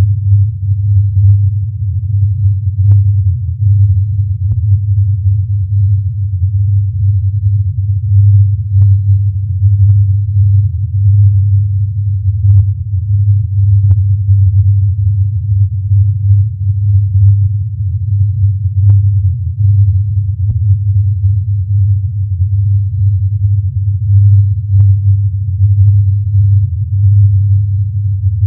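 A steady, deep hum, the recording billed as the Taos Hum. Faint clicks are scattered through it every second or two.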